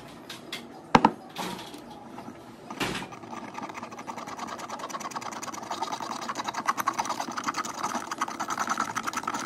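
Utensil working a thick blended avocado and egg-white paste through a fine metal mesh strainer into a glass jar, scraping the mesh in rapid, even strokes that grow louder toward the end. A couple of sharp knocks come about one and three seconds in.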